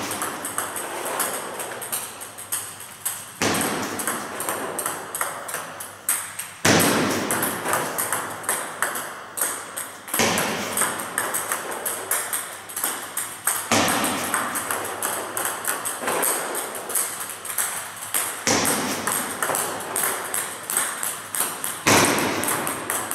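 Table tennis ball clicking off the paddle and bouncing on the table, one serve after another: backspin punch serves repeated every three to four seconds, with a steady patter of quick ball ticks in between.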